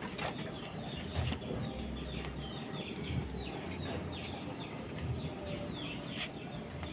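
Birds chirping over and over in short falling chirps, a few each second, over a low rumble.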